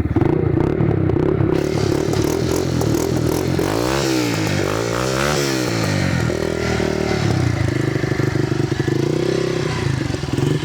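Honda CG 125 Fan KS single-cylinder four-stroke engine running through a Roncar aftermarket aluminium exhaust, idling with the exhaust note. The throttle is blipped twice about four and five seconds in, revving up and dropping back, then it settles to a steady idle with a slight rise near the end.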